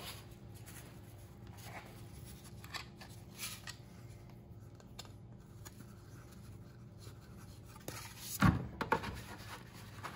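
Quiet handling of a foam taxidermy manikin and its leg as the leg is fitted for screwing on: light scrapes and faint ticks over a steady low hum, with a sharp knock about eight and a half seconds in and a few smaller taps after it.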